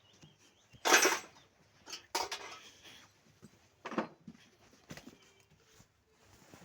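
A handful of separate sharp knocks and clatters of hard objects, likely tools or parts being handled, about four over a few seconds, the first the loudest.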